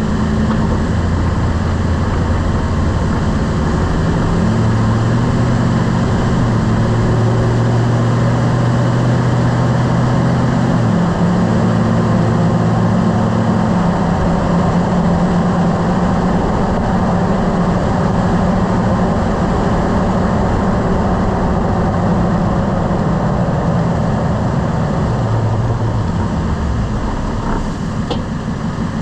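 Lifted pickup truck driving: steady engine and road noise, with the engine's low tone changing pitch in steps a few times. There is one faint click near the end.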